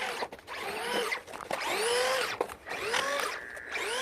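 Electric motor of a Traxxas Maxx RC monster truck whining up and down in short throttle bursts, about five in a row, each a quick rise and fall in pitch.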